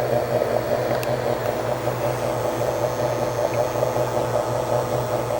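Antique cast iron ceiling fan motor running on a test bench: a steady low electrical hum under a constant whirring rush, with one small click about a second in.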